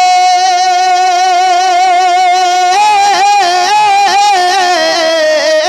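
A man singing a naat unaccompanied, holding one long steady note for about three seconds, then wavering on it in a vibrato that slides a little lower near the end.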